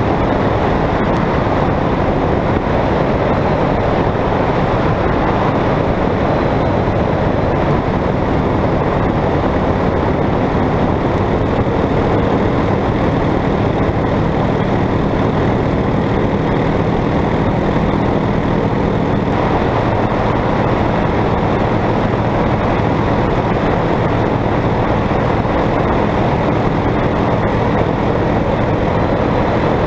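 Piston engine and two-blade propeller of a small high-wing light aircraft in cruise flight: a steady drone with rushing air, heard from outside the cabin. The hiss eases slightly about twenty seconds in.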